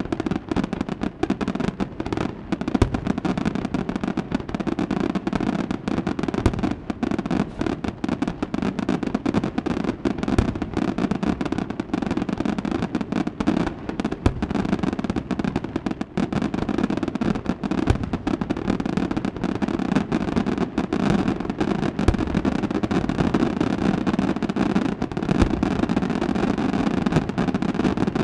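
Fireworks going off in a dense, unbroken barrage of many bangs and crackles.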